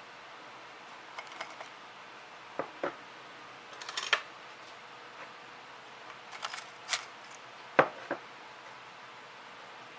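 A scatter of short, sharp clicks and taps of small objects being handled, about a dozen spread irregularly, the loudest a little before 8 seconds in, over a steady faint hiss.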